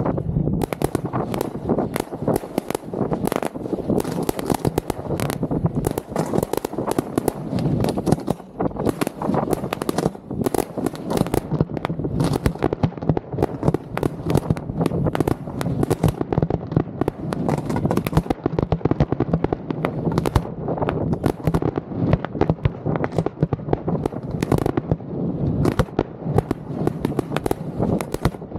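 Fireworks display heard from inside the firing site: a dense, near-continuous barrage of shells launching from their mortars and bursting, many sharp bangs a second.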